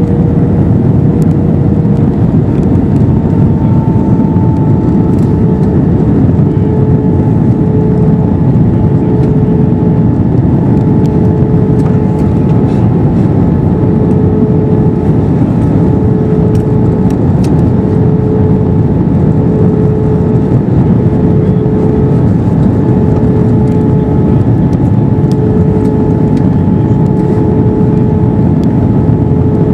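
Cabin noise inside a Swiss Airbus A321-212 with CFM56 engines: a steady, loud rush of engine and air noise. Over it, a humming tone pulses on and off about every second and a half.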